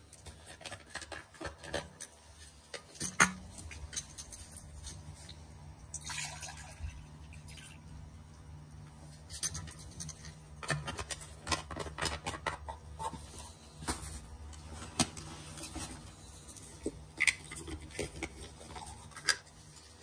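Wood fire crackling and popping inside the T-Brick Altay wood stove: irregular sharp snaps, the loudest about three seconds in, over a low steady hum.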